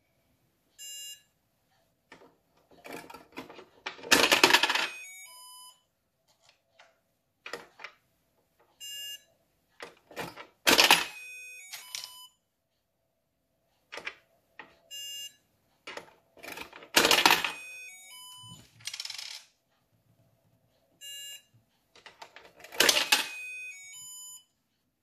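Toy ATM savings bank in use: a short electronic beep, then a sharp clatter and a quick electronic tune, repeated four times about six seconds apart.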